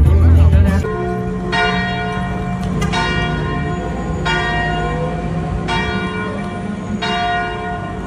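Background music with a beat cuts off about a second in; then a church bell tolls in single strokes about every second and a half, each ringing on, over a steady low hum.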